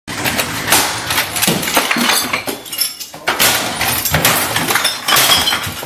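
Objects being smashed and thrown around a room: a rapid string of crashes and bangs with breaking glass and clinking debris.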